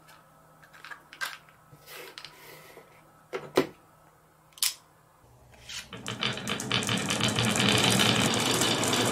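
A few sparse clicks of glass marbles knocking together, then, from about halfway, a dense continuous clatter of many glass marbles rattling against each other and against hard plastic, growing louder toward the end.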